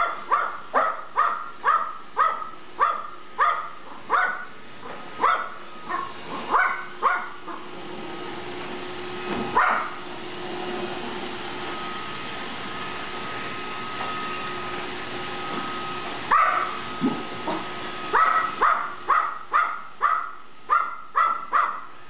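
Chihuahua barking sharply and repeatedly at a running Roomba robot vacuum, about two barks a second. The barking breaks off for several seconds in the middle, leaving the Roomba's steady whirring with a couple of single barks, then starts again near the end.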